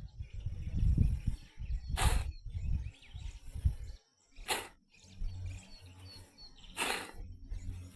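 Gusty wind buffeting the microphone, with three short rushing sweeps and a few faint bird chirps.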